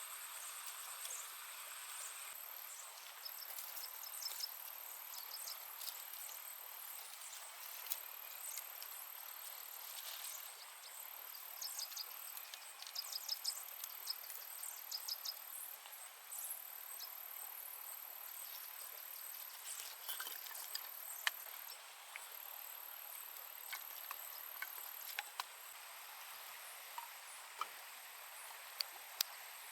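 Forest insects chirping in a steady high buzz, the highest tone cutting in and out every few seconds. Scattered small clicks and taps over it, thickest in a quick run about halfway through.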